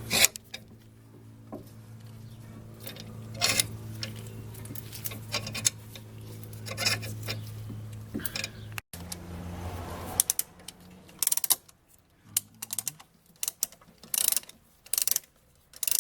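Brake caliper pistons being pressed back with a clamp tool: metallic ratcheting clicks, in short repeated clusters from about ten seconds in, over a steady low hum that stops at about the same point.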